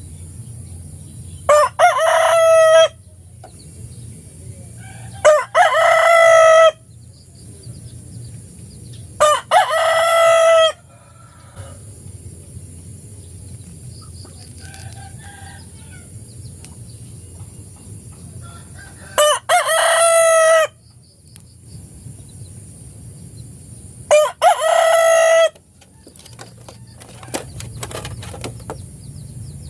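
Rooster crowing five times, several seconds apart. Each crow lasts about a second and a half and opens with a short separate note.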